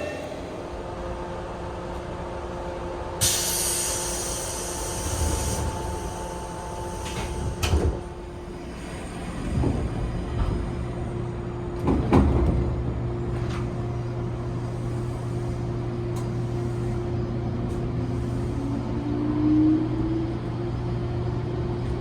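Interior sounds of a 415 series electric train: a hiss of released air about three seconds in, a few knocks, then a steady hum with a faint rising whine near the end.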